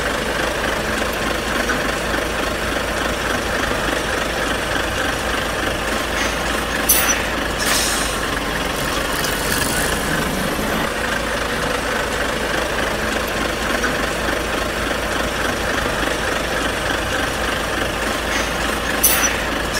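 Large truck engine idling steadily, with a few short sharp hisses about seven and eight seconds in and once more near the end.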